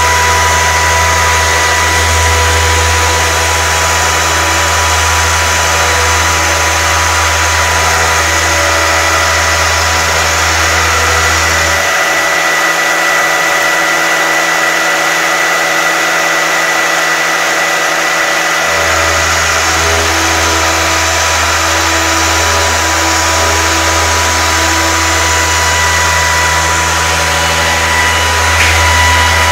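5-axis CNC stone router cutting marble under a water coolant spray: the spindle runs steadily with a constant whine over a dense hiss of cutting and spraying water. A deep hum underneath cuts out for about six seconds around the middle, then comes back.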